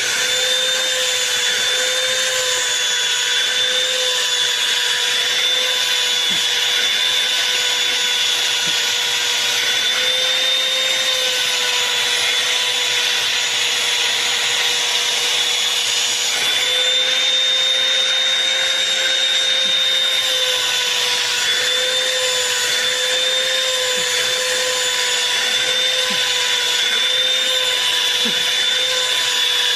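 Vacuum cleaner running steadily, its motor whine wavering slightly in pitch, with the nozzle drawn over a Bengal cat's fur.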